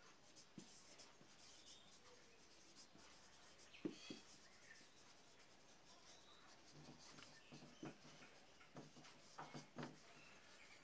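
Faint squeaks and scratches of a marker pen writing on a whiteboard in short strokes, a few about four seconds in and a denser run near the end.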